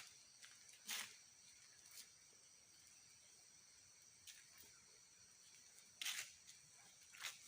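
Near silence with the faint, steady chirring of night insects such as crickets. There are brief rustling noises about a second in and twice near the end.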